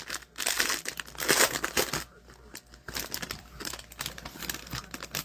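Foil wrapper of a hockey card pack crinkling as it is handled and torn open, loudest in the first two seconds, then lighter crackling.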